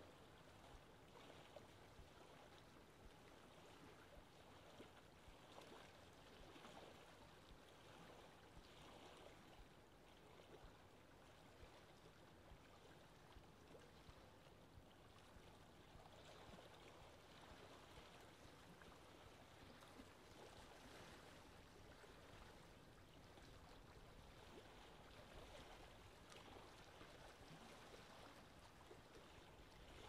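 Lake ambience: wind with moving, lapping water, a faint steady wash with small irregular splashes.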